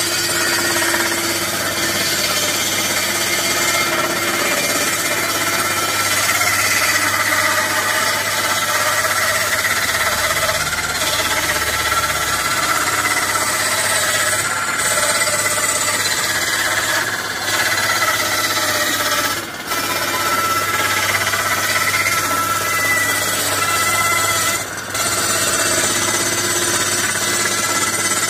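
Table saw cutting along a wooden board fed by hand, a loud, steady whine with two short dips in the second half.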